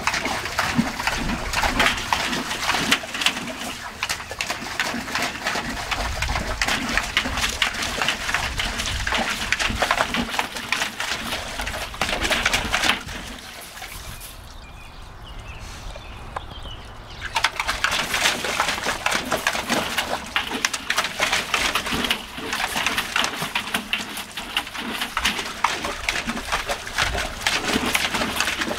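Water splashing and sloshing in a galvanized metal tub as a dog stands and moves about in it, an irregular run of splashes that eases off for a few seconds past the middle.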